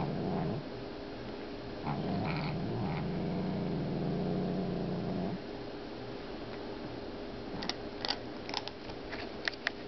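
A domestic cat growling low while eating kibble, guarding the food from another cat: a short growl trailing off just after the start, then one long steady growl of about three and a half seconds. Near the end come several sharp clicks as she eats from the bowl.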